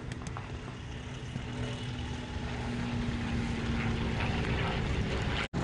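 Piston-engine propeller aircraft droning overhead, growing gradually louder, with a brief dropout near the end.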